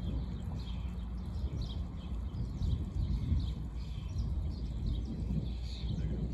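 Wind rumbling on the microphone, with small birds chirping over it in quick, repeated calls.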